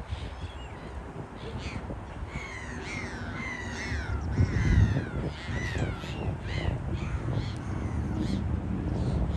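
A flock of gulls calling: many harsh, falling calls overlap in the middle, then thin out toward the end. Low wind rumble on the microphone runs underneath.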